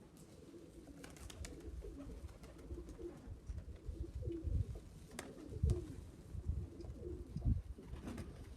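Domestic pigeons cooing repeatedly in a loft, with several low thumps and a few sharp clicks.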